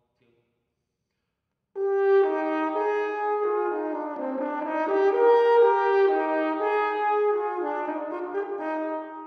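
Solo French horn playing a melodic phrase of held notes, recorded close-miked with artificial church reverb (a convolution reverb's warm wooden church room) added to give it space. It comes in about two seconds in and starts to fade near the end.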